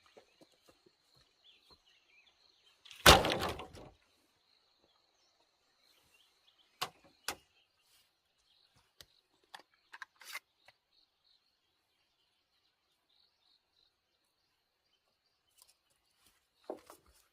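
Wood and tools being handled: one loud, rough thump about three seconds in, then a few sharp knocks and clicks, over a faint steady high insect drone.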